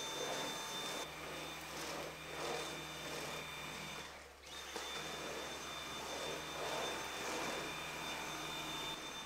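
Dyson cordless stick vacuum running with a steady high whine over a low hum. The sound drops out briefly about four seconds in.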